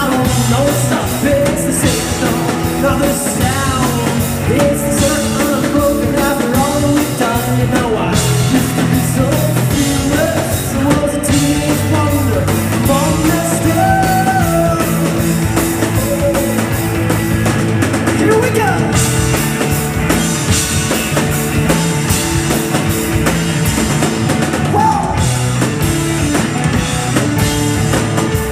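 Live rock band playing: electric guitar, electric bass and drum kit, with a man singing lead.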